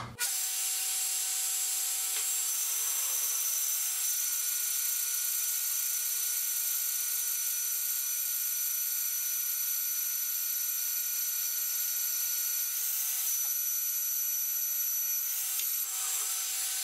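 BDS Maschinen MAB 485SB magnetic drill running in bottom gear at a raised speed, an armor-plated annular cutter boring through half-inch steel plate: a steady whine of motor and cutter that cuts in suddenly at the start. The cutter is going through easily.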